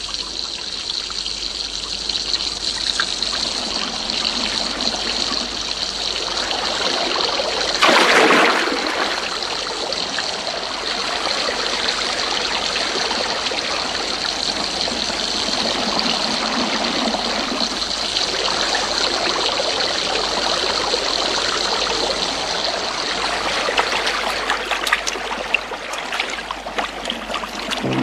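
Heavy rain falling steadily, a cartoon sound effect, with a brief louder burst of noise about eight seconds in.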